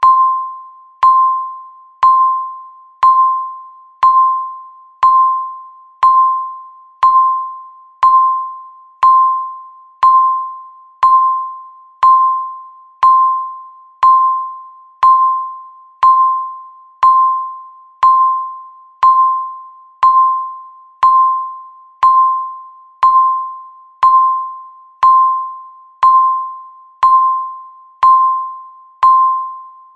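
Countdown timer beeping once a second: a single pitched ping with a sharp start that fades quickly, repeating evenly, each beep marking one second left.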